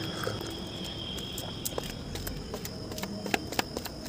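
Footsteps going down concrete stairs: sharp taps, a few a second, beginning about one and a half seconds in and coming faster.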